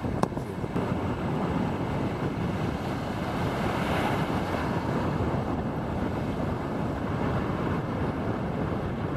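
Ocean surf breaking and washing up the beach, with wind buffeting the microphone. A single sharp click just after the start.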